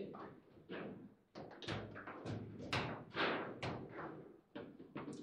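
A foosball table being handled: about a dozen sharp, uneven knocks and clacks as rods, handles and ball strike the table.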